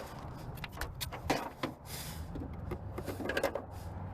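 Scattered clicks, knocks and a short scrape of plastic and metal car interior parts being worked loose and handled during dismantling, over a low steady hum.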